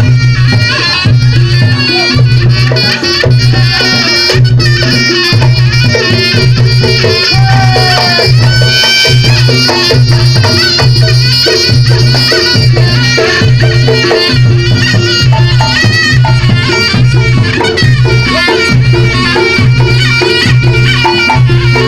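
Reog Ponorogo gamelan music: a reedy slompret shawm plays a wavering melody over percussion, with a low pitched gong-chime note struck on a steady, even beat, about one and a half times a second.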